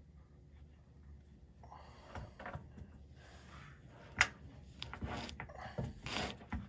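Scattered scrapes and rustles of hands and tools working on a skid steer's drive chain, with one sharp click about four seconds in.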